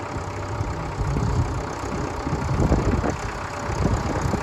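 Case backhoe's diesel engine running steadily with a low rumble, with a few heavier knocks and pulses midway.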